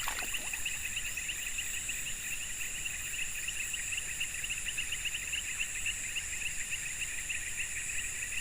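Dense insect chorus, crickets and cicadas: a fast, even pulsing chirr with steady high-pitched whines above it, unbroken throughout.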